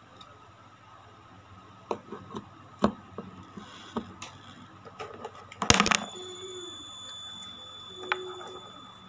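Light clicks and knocks of skincare jars and bottles being handled on a tabletop, with a louder clatter of several knocks about six seconds in. After it a faint, steady high-pitched tone sounds for a few seconds.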